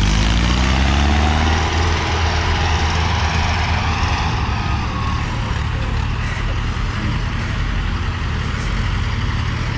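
Diesel farm tractor engines running. One tractor passes close by with its engine note rising over the first second or so, then several engines go on together as a steady low rumble.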